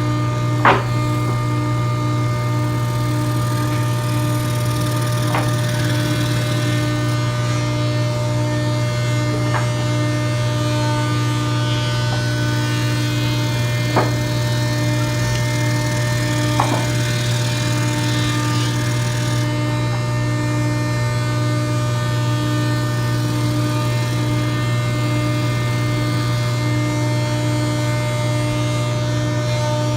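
SCR-70 scroll saw running steadily, a constant motor hum with a fast pulsing beat from the reciprocating blade. A few sharp clicks stand out, the loudest about a second in.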